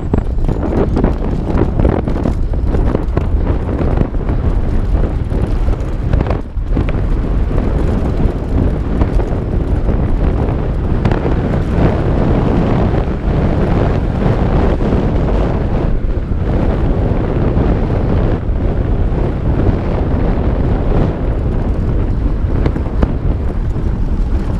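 Wind buffeting a helmet-mounted GoPro microphone while a Santa Cruz Bronson mountain bike rides a trail at speed, with tyres rumbling and the bike clattering over rough ground.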